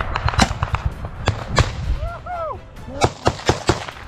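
Close-range gunfire in a trench firefight: sharp single shots and bangs at irregular gaps, a quick cluster of four near the end, over a low rumble. A short shouted voice cuts in about halfway.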